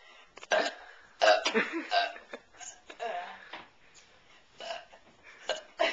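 A person belching repeatedly: several short burps at irregular intervals, the loudest a little over a second in.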